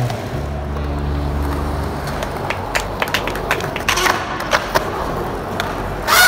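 Skateboard wheels rolling on concrete, with a run of sharp clacks and knocks from the board and trucks and one loud clack near the end.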